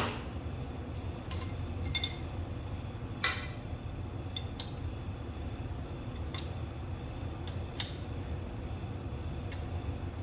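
Scattered light metallic clinks of a wrench and fittings while a coolant temperature sender is threaded into the engine's intake, the loudest about three seconds in, over a steady low hum.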